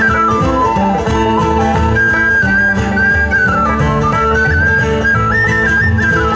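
Live traditional Celtic folk band playing a hornpipe: a quick, ornamented melody line carried over guitar chords and a bass line.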